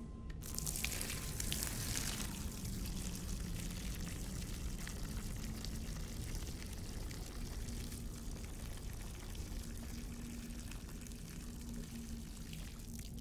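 A man urinating onto the ground: a stream of liquid that starts suddenly about half a second in, is strongest for the first couple of seconds, then keeps running more softly. A low steady drone sits underneath.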